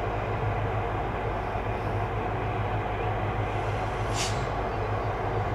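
Trenitalia electric locomotives at the head of a freight train, running with a steady low hum. A short hiss of released air comes about four seconds in.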